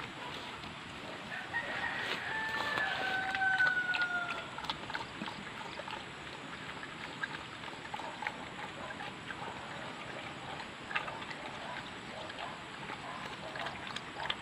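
A domestic pig eating azolla from a metal bowl, with wet chewing and slurping and many small clicks. One long call, falling slightly in pitch, sounds over it from about one and a half to four seconds in.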